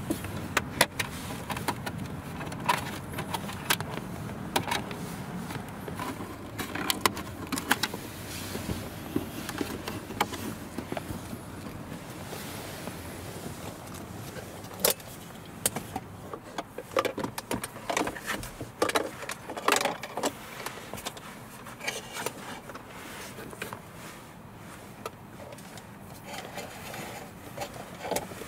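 Scattered clicks, taps and rustles of hands handling plastic interior trim and a coiled USB cable in a car's footwell, denser in the second half, over a low background rumble that is stronger in the first dozen seconds or so.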